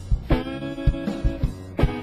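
Live garage rock band playing: guitar chords struck twice and left to ring, over a beat of short low thumps.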